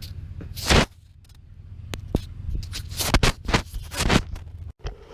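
Handling noise: a loud knock, then a quick run of scrapes and clunks, like hard gear being picked up and set down. A low hum runs under the start and stops just after the knock.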